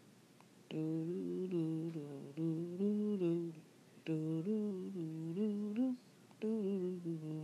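A woman humming a wordless tune in three short phrases, her notes held level and stepping up and down, with brief pauses between phrases.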